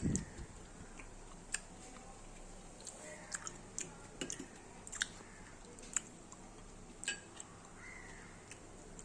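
A person eating hot soup quietly: scattered sharp clicks and mouth sounds of chewing, about eight in the middle of the stretch, over a faint steady background.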